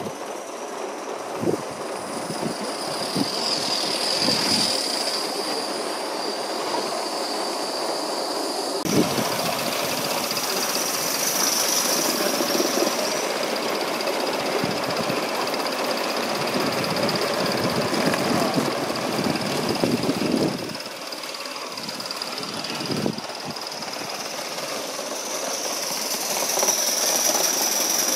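Gauge One live-steam model locomotive running on its track, a steady mechanical rail sound that drops away suddenly about three quarters of the way through and builds again near the end.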